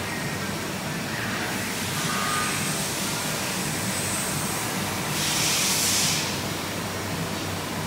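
Steady mechanical hum of a powered-up Citizen Cincom L32 sliding-head CNC lathe. A short burst of hiss comes about five seconds in.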